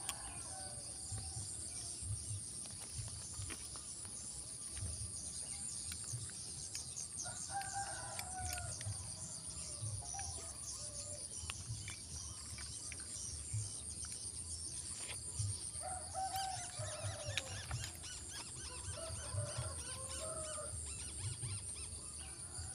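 A rooster crowing several times, each crow lasting a second or two, over a steady high-pitched insect drone.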